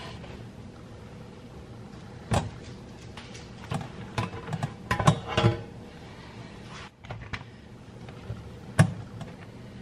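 Knocks and clatter of a metal loaf pan being handled and tipped over a wire cooling rack to turn out freshly baked loaves of white bread, in irregular bursts with one sharp knock near the end.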